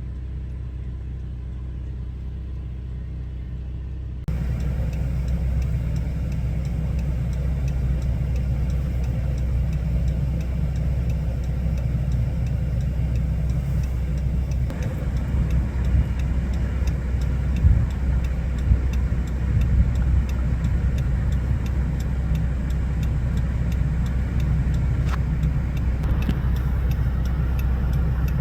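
Road noise inside a moving vehicle: a steady low rumble of engine and tyres, stepping up louder about four seconds in.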